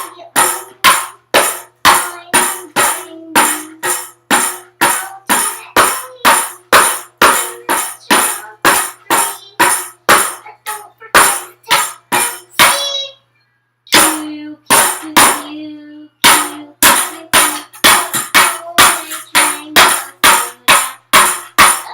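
Tambourine struck in a steady beat, about two hits a second with a jingling ring after each, pausing for about a second near the middle before starting again.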